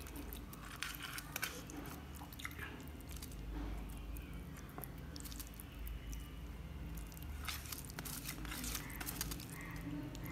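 Fingers squishing and mixing cooked rice with chicken curry on a plate: irregular soft wet squelches and small crackles, busiest about a second in and again near the end.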